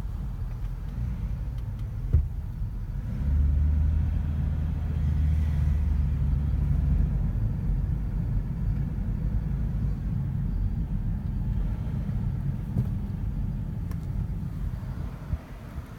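Car driving slowly, heard from inside the cabin: a steady low rumble of engine and road, louder for a few seconds from about three seconds in, with a brief knock about two seconds in.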